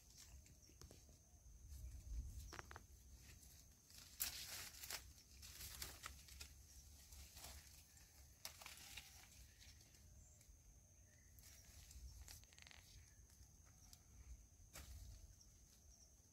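Near silence with faint, scattered eating noises as chicken curry and rice is eaten: soft clicks, smacks and rustles at irregular moments, over a faint steady high-pitched whine.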